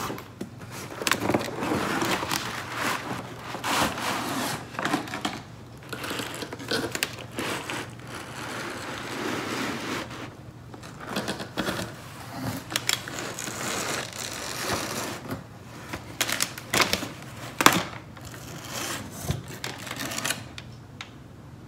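Inflatable plastic air-column packaging rustling and scraping against a cardboard box as it is worked out, with many small clicks and taps and one sharper knock late on.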